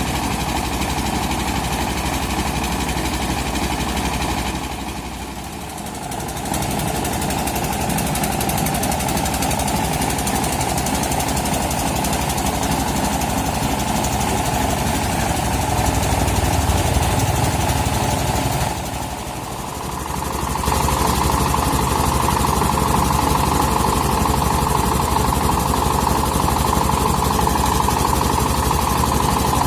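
Portable rice milling machine running with its engine: a steady, loud mechanical din with a fast even rattle. It drops briefly about five seconds in and again just before twenty seconds, then carries on slightly louder.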